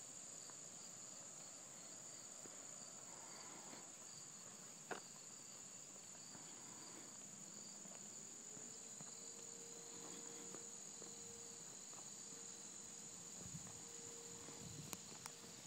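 Faint, steady, high-pitched trilling of insects, such as crickets, with one sharp click about five seconds in.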